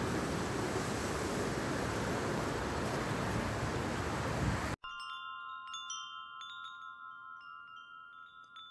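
A steady rushing outdoor noise, then, after an abrupt cut about five seconds in, a wind chime tinkling: scattered high dings over a few held ringing tones, slowly growing fainter.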